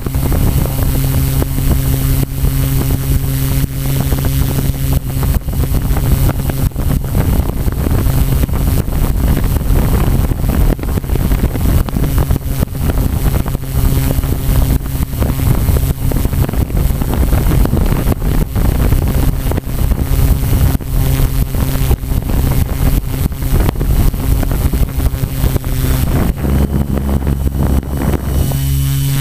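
Multirotor drone's motors and propellers humming steadily, picked up by the camera on board, with wind buffeting the microphone. The gusty noise eases and the hum shifts slightly near the end.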